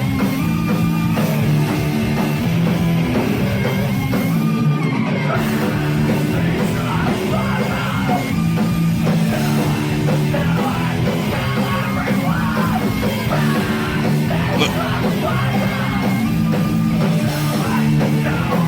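Heavy metal music with distorted guitars, drums and shouted vocals, playing throughout.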